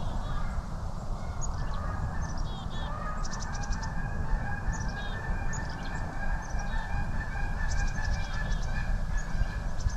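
A flock of geese honking, many overlapping calls repeating steadily throughout.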